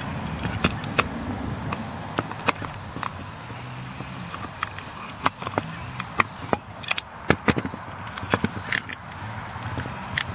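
Sakura No. 22 fishing reel being handled and worked by hand, giving irregular sharp metallic clicks and knocks over a low steady rumble.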